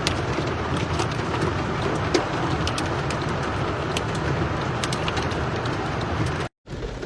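Steady rush of heavy rain and floodwater with scattered sharp ticks of drops. It cuts off suddenly near the end.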